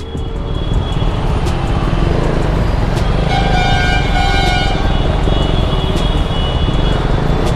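Stop-and-go city traffic rumbling at crawling pace, a motorcycle engine among the vehicles. Midway a vehicle horn sounds steadily for about four seconds.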